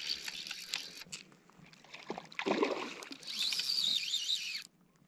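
Fly reel ratchet buzzing in two spells as line runs off or is wound in while a hooked trout is played. The second spell wavers in pitch with the spool's speed and cuts off suddenly near the end. A short, lower noise comes in between, about two and a half seconds in.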